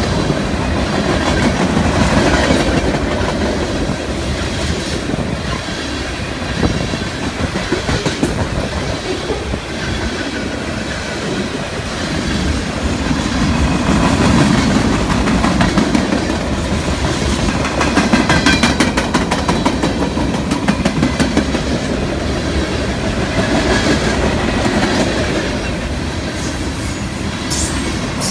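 Freight train of tank cars and hoppers rolling past, its wheels clicking and clacking steadily on the rails.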